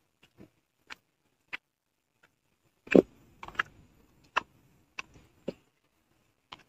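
Footsteps on a mountain path while climbing: short, irregular taps and scuffs, the loudest about three seconds in.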